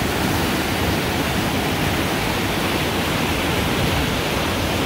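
A small creek waterfall close by, whitewater pouring over rocks: a loud, steady, noisy rush of water.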